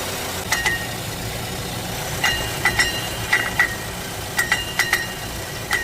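2016 Chevy Equinox's 2.4-litre Ecotec engine idling with irregular, ringing metallic tings, about a dozen light pings in bursts. The tinging comes from the catalytic converter, whose honeycomb is broken and loose inside the shell.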